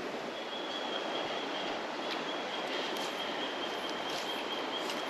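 Steady rush of flowing creek water. A faint, thin, high steady tone starts just after the beginning and holds throughout.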